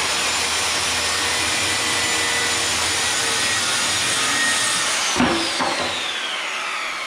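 Circular saw cutting through an MDF panel, running at a high, steady whine under load. About five seconds in the trigger is released and the blade spins down with a steadily falling whine, and there is a sharp knock as the off-cut drops to the floor.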